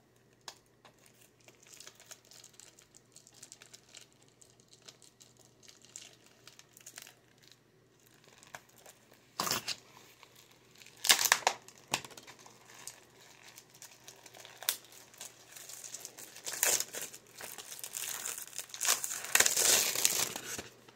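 Plastic shrink-wrap on a disc case being picked at with fingernails, then torn and peeled off, crinkling. Faint scratching at first, sharp loud crinkles about nine and a half and eleven seconds in, and a longer stretch of crinkling near the end.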